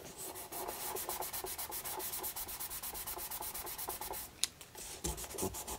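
Fine 1500-grit sandpaper rubbed back and forth under fingertips over a lacquered wooden instrument back, lightly sanding out a line in the finish. It is a quiet, even scratching of about five short strokes a second, with a single sharp click about four and a half seconds in.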